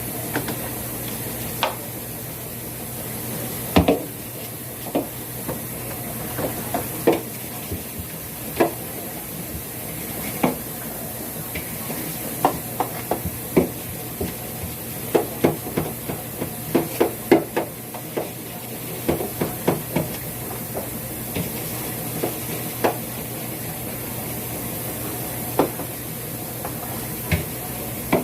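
Irregular clicks and knocks of items and fittings being handled and scrubbed while a refrigerator is cleaned out, over a steady hiss. The knocks come thickest in the middle.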